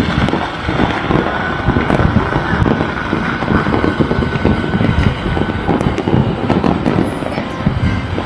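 Many fireworks and firecrackers going off across a city at once: a dense, unbroken mass of pops, cracks and distant booms with a constant low rumble.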